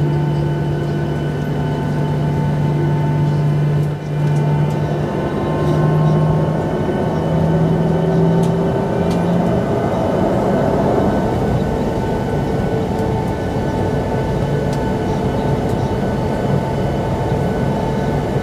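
Steady cabin hum of a Boeing 737-800 on the ground, heard from inside by the wing, with a low drone that breaks up and fades about nine seconds in and a faint whine rising slowly through the middle.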